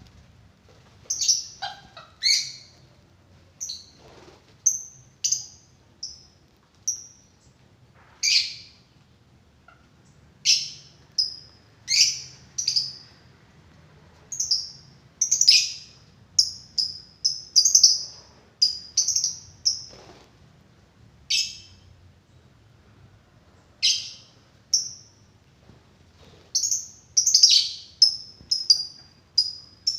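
Small bird chirping over and over: short, high calls, some sweeping sharply downward, in irregular runs with brief pauses.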